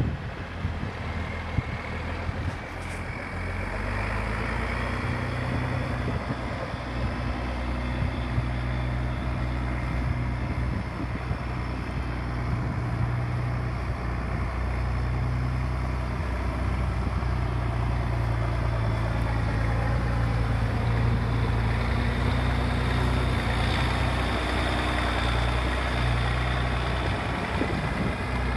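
International Harvester 5088 tractor's turbocharged six-cylinder diesel running steadily as the tractor drives and turns, its note picking up and growing louder about three to four seconds in.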